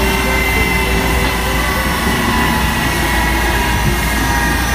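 Jet airliner on an airport apron: a steady rumble with several constant whining tones over it.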